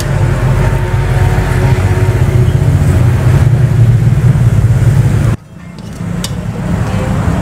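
Gas stove burner roaring steadily under a wok of noodles in broth, cutting off abruptly about five seconds in as the wok is lifted off to be poured.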